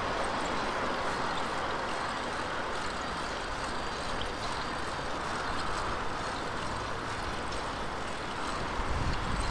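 Steady rushing noise while riding a bicycle, from tyres and wind. Near the end, gusts of strong wind start buffeting the microphone with a low rumble.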